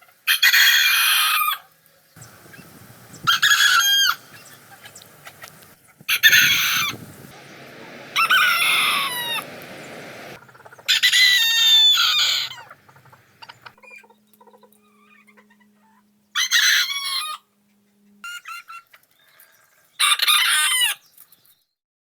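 Rooster crows sped up in fast forward: seven short, high-pitched crows in a row, each lasting about one to two seconds, with quieter gaps between them.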